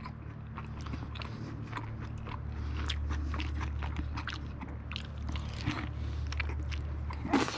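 Close-up chewing of a steak and chicken fajita: a string of irregular wet mouth clicks and soft crunches.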